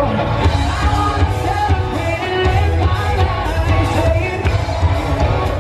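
A live rock band playing: a male singer over electric guitar, heavy bass and drums.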